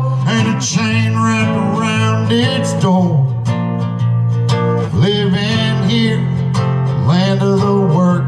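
A man singing a country-folk song while strumming an acoustic guitar, his voice sliding up into some notes.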